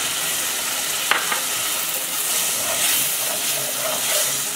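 Onion-tomato masala sizzling steadily in a non-stick pan with the dal water just poured in, stirred with a spatula, with a few short scrapes of the spatula against the pan.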